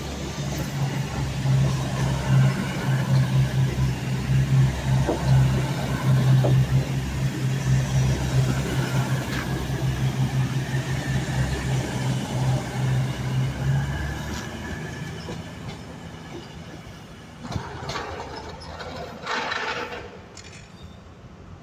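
CrossCountry Class 220 Voyager diesel multiple unit pulling away, its underfloor diesel engines giving a steady low throb under the rumble of the passing carriages. After about fourteen seconds the sound fades as the train draws off, with two short louder sounds near the end.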